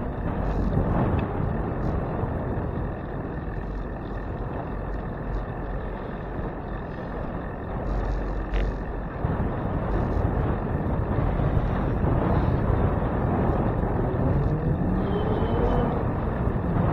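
Wind buffeting the microphone of a handlebar-mounted camera on a moving bicycle, a steady low rumbling rush. A faint rising whine comes in near the end.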